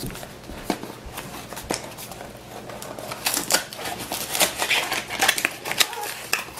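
A small cardboard box being opened by hand: flaps scraping and paper packaging rustling, with a run of small clicks and crinkles that gets busier about three seconds in.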